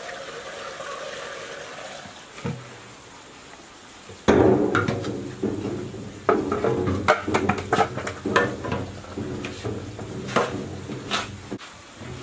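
Fuel pouring from a metal jerry can through a plastic funnel into a portable generator's tank, a steady trickling for about two seconds. A thump follows. From about four seconds in, a much louder run of irregular knocks and clatter continues to the end.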